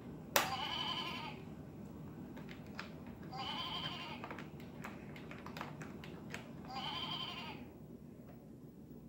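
Electronic toy farm's sound chip playing a recorded animal bleat three times, each about a second long and about three seconds apart, the first starting with a sharp click. Light clicks of plastic toy pieces knocked about come in between.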